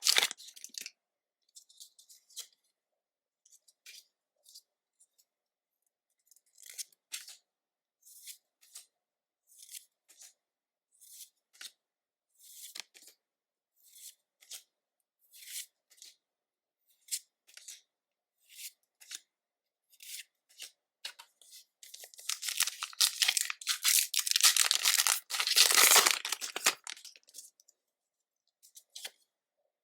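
Pokémon trading cards being slid off the stack one at a time, with a soft swish about once a second. Near the end, a foil booster pack is torn open with a loud, crinkling rip lasting several seconds.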